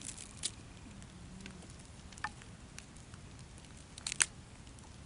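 A few sharp snaps and crackles over a quiet background, the loudest a quick double crack about four seconds in.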